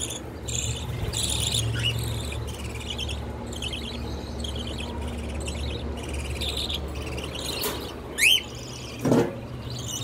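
Caged budgerigars and cockatiels chattering in quick, soft, high chirps. About eight seconds in there is one sharp downward-sweeping call, and a louder sound follows a second later.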